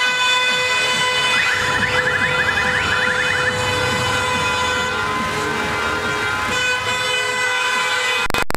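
Car horns held down in a long, steady blare over traffic and engine noise, with a sharp crackle near the end.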